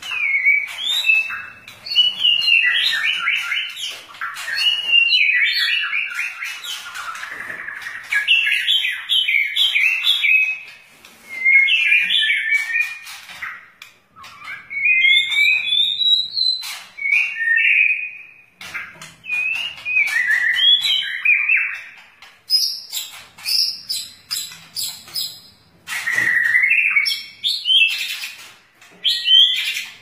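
White-rumped shama (murai batu) singing: a long run of quick, varied whistled and chattering phrases mixed with sharp clicks, broken by a few short pauses.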